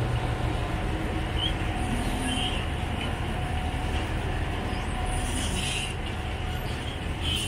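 Steady low rumble of a river ferry's engine running at the pier, with a faint steady whine above it.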